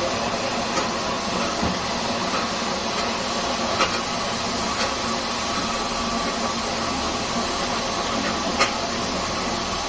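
Steam hissing steadily from the standing LMS Fowler 4F 0-6-0 steam locomotive, with a few sharp clicks, the clearest about four seconds in and near the end.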